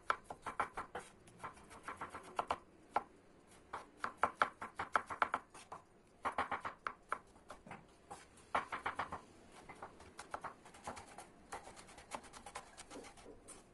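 Chef's knife chopping diced tomatoes, red peppers and parsley on a wooden cutting board, mincing them fine. The rapid knife strikes on the board come in quick runs with short pauses between.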